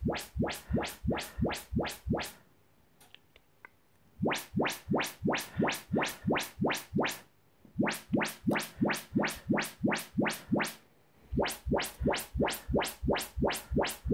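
Yamaha YPAO auto-calibration test signal played through the home cinema speakers: rapid rising frequency sweeps, about three or four a second, in four runs of roughly three seconds with short pauses between them. Each run is one speaker being measured in turn by the calibration microphone.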